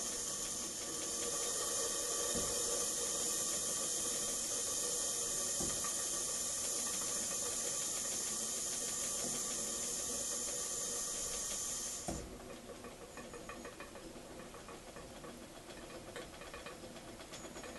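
Steam hissing steadily from a small homemade model steam boiler with its valve open, cut off sharply about twelve seconds in as the valve is shut to let pressure build. After that, faint quiet ticking.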